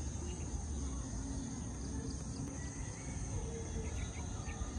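Steady high-pitched drone of insects, such as crickets or cicadas, over a low rumble, with a few faint short chirps.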